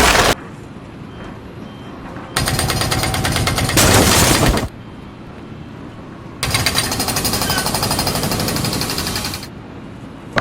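Jackhammer hammering in two long bursts of rapid, even blows, the second starting about six seconds in, with a quieter background between them.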